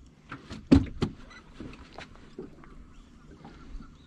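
Irregular knocks and clicks aboard a small fishing boat, with the loudest sharp knock about three quarters of a second in and lighter ones spread through the rest.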